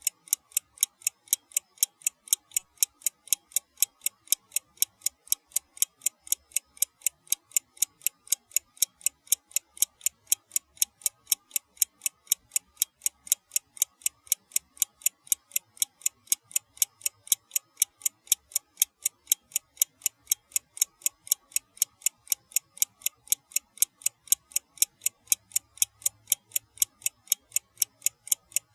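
Old-fashioned mechanical wind-up alarm clock ticking: rapid, perfectly even, crisp high ticks, several a second.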